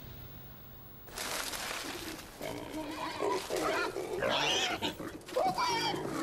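An animal calling: a run of short calls that waver in pitch, starting about two and a half seconds in and getting louder toward the end, over a rustling background that begins suddenly about a second in.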